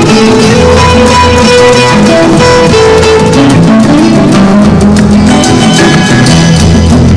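Music with guitar and drums, a steady beat under held melody notes.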